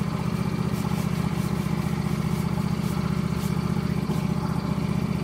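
John Deere LA120 lawn tractor engine idling steadily, an even rapid putter.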